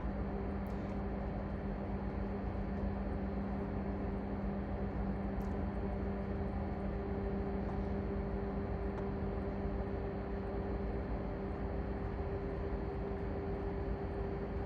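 Steady machinery hum of a ship's engine room: an even drone with a constant low tone, and a couple of faint clicks.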